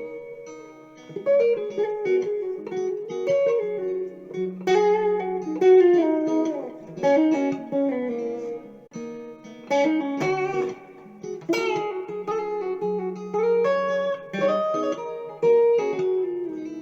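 Guitar playing a melody of plucked notes that ring on, over held low notes.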